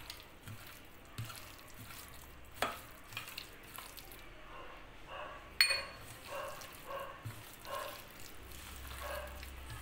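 Hand squishing and mixing marinated chicken pieces with cornflour and masala paste in a steel bowl: soft, irregular wet squelching, with a sharp click about five and a half seconds in.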